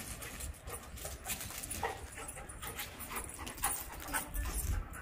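Labrador retriever panting, with scattered short taps and scuffs.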